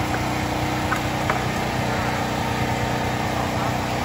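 A small engine running steadily at a constant speed, a continuous drone, with a couple of faint clicks about a second in.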